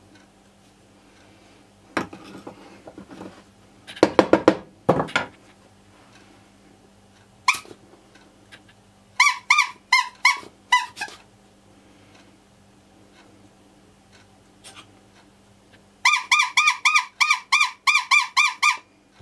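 Rubber-bulb horn being squeezed by hand, giving short, high-pitched honks: a handful around the middle and a quick run of about ten near the end. A few seconds in there is some knocking and rattling of handled metal parts.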